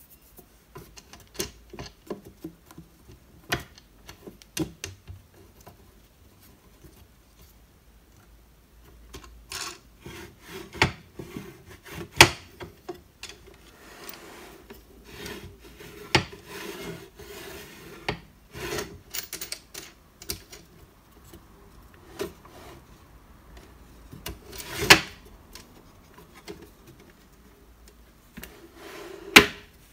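A Renoir oiled-beechwood table easel being handled and adjusted: its wooden mast parts slide and rub against each other, with scattered sharp knocks and clicks of wood and fittings, the loudest a few near the middle and end.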